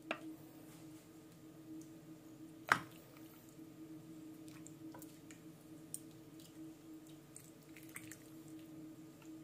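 A metal ladle scooping soup from an enamel pot into a bowl: faint sloshing and dripping, with one sharp clink nearly three seconds in.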